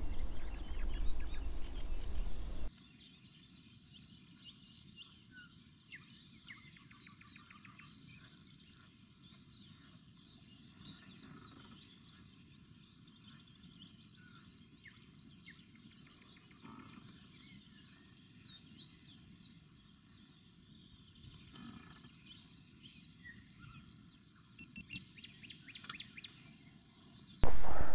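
Wind buffeting the microphone as a low rumble for the first few seconds. It then drops away to faint birdsong: many small birds chirping and calling, a little louder near the end.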